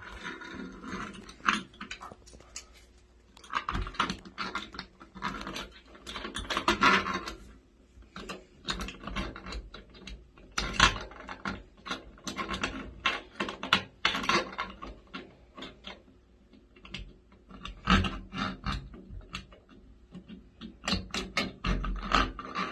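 Small hex key clicking and scraping at the handle adapter of a chrome Moen shower valve trim, with irregular light clicks, rattles and handling noise as it is worked.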